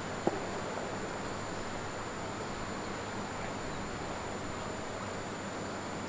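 A single short, sharp knock of a cricket ball arriving at the batting end just after a delivery, over a steady wind-like outdoor hiss with a faint, thin, high whine.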